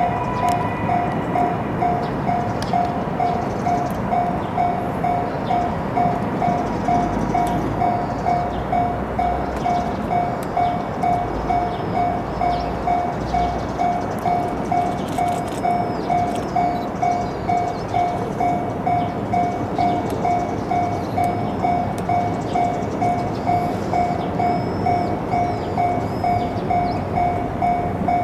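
Railway level crossing alarm ringing steadily, about two strikes a second, over the rumbling noise of a train.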